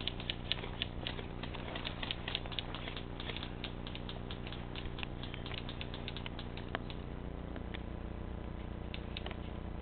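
Irregular sharp clicks and snaps of airsoft guns firing and BBs striking, denser in the first half, over a steady low hum.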